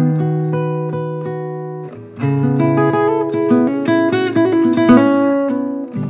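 GWG Guitars 00-size acoustic guitar with a Sitka spruce top and mahogany back and sides, played solo. A chord rings and fades for about two seconds, then playing resumes with strummed chords and picked single notes.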